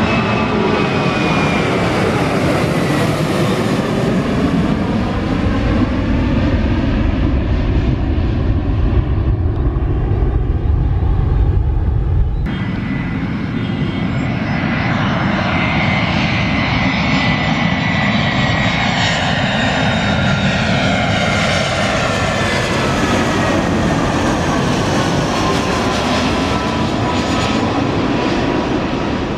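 Boeing 737 jet airliner climbing out after takeoff at high thrust, a deep rumble with engine whine falling in pitch as it draws away. After a cut about twelve seconds in, an Airbus A320 on final approach follows, its jet engines whining, the pitch sliding down as it passes close.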